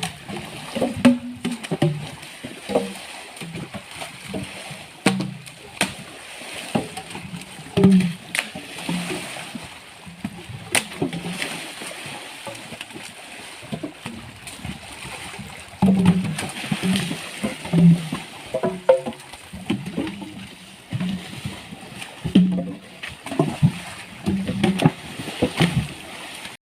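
Water splashing and sloshing, with scattered irregular knocks, as sengon logs are moved through a river.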